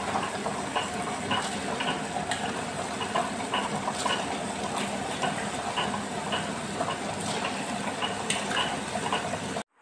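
Orient table-top wet grinder running, its two stone rollers turning in the rotating drum as they grind soaked rice and urad dal: a steady mechanical whirr with frequent irregular clicks, cutting off suddenly near the end.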